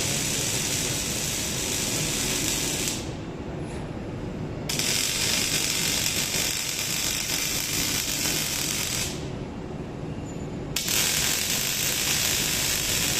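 Robotic arc welding: the welding arc of an OTC robot welder crackles and hisses steadily in three runs of about four to five seconds each. It cuts out for about two seconds near three seconds in and again near nine seconds in, as the arc stops and restarts between welds. A low background rumble runs under it.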